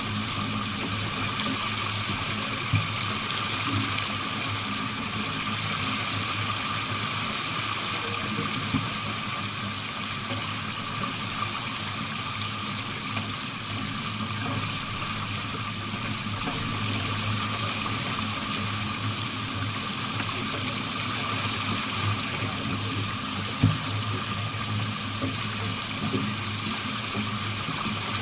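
Steady rush of water while under sail, with a few brief knocks, the sharpest one near the end.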